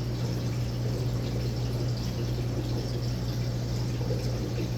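Aquarium water bubbling and splashing steadily from the tank's air-driven sponge filter, over a constant low hum from the filter equipment.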